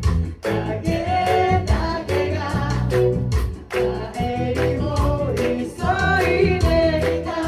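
Live band music: voices singing a pop song together over electric guitar, bass and a steady beat.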